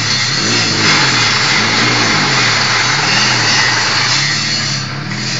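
Concrete-block (batako) press machine running: a steady engine hum whose pitch rises and falls about once a second, under a loud rattling hiss from the working machine.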